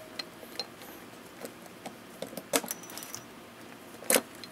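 Long-handled lever blind-rivet tool being squeezed to pull a pop rivet, giving a series of small metal clicks and a louder sharp click just after four seconds.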